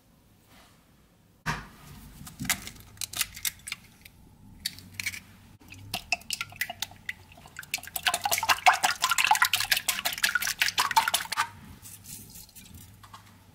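Whisk beating an egg in a bowl: a fast, dense run of clicks and taps against the bowl that builds up past the middle and stops near the end. Before it there is a sudden knock about a second and a half in, followed by scattered taps.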